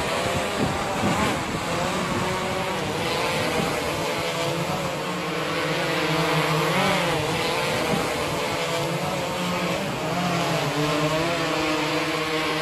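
Multirotor drone's propellers humming steadily with a whine, the pitch wavering slightly now and then.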